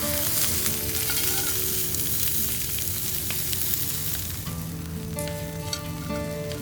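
Food frying in a hot pan, sizzling loudly for the first four seconds or so and then quieter, with background music of held notes.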